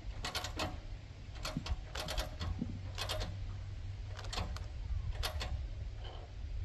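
Irregular clusters of sharp clicks and knocks, about six groups spread across the few seconds, over a low steady hum.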